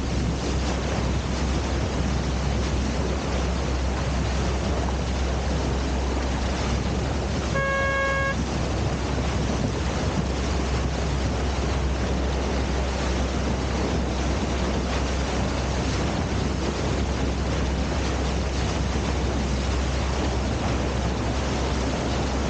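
Wind rushing steadily over the microphone of a camera carried aloft on a parasail, a constant rush with a deep rumble. About eight seconds in comes a single short horn-like beep lasting under a second.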